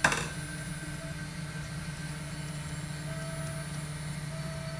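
Robo R2 3D printer moving its build plate up the Z axis: a steady low hum with a faint motor whine that comes and goes. A sharp click sounds at the very start.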